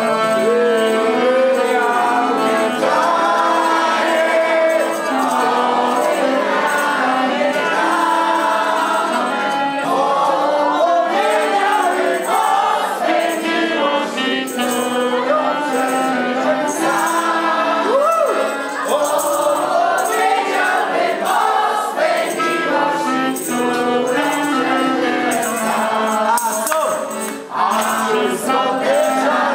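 Live accordion and clarinet music, with the accordionist and a group of guests singing along.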